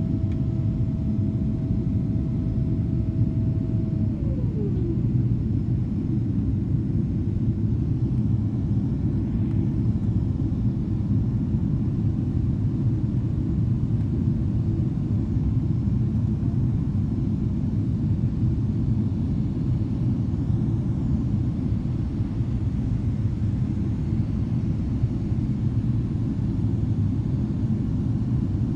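Cabin noise inside a Boeing 777-300ER in climb, from a window seat over the wing: a steady low rumble of its GE90 engines and airflow. A faint steady whine drops in pitch and fades out about four seconds in.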